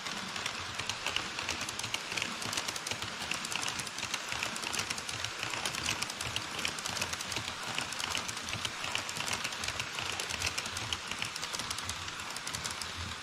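HO scale model trains running on the track: an E5 shinkansen model and a container freight train, their small metal wheels clicking and rattling over the rails in a fast, dense, steady clatter with a hiss underneath.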